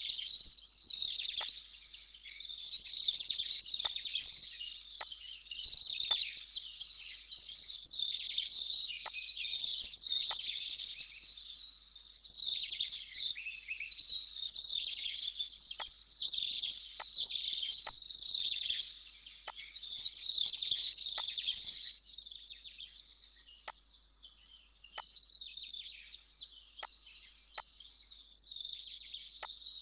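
Small birds chirping and twittering continuously in the background, thinning out about two-thirds of the way through, with scattered sharp computer-mouse clicks every second or so.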